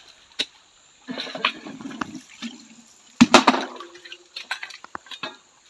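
Steel crowbar scraping and knocking into a riverbank of white clay and fine sand, with loosened material falling and splashing in shallow water. Irregular knocks throughout, the loudest crash about three seconds in.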